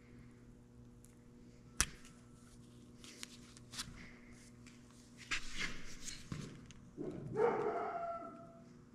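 A dog's short whining call near the end, after a few scattered clicks and a rattling scuffle, over a low steady hum.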